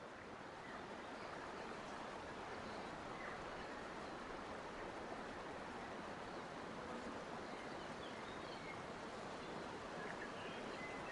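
Steady rushing noise, swelling over the first second, with a few faint high chirps here and there.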